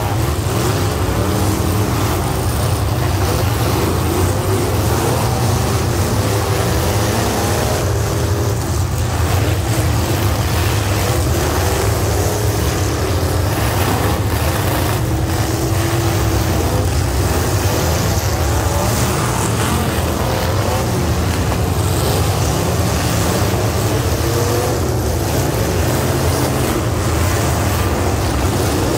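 Several demolition derby cars' engines running and revving at once, their pitches rising and falling over a steady low drone.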